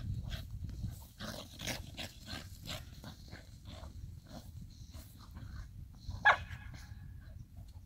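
Two dogs play-fighting, with repeated short growls and snarls and one sharp bark about six seconds in.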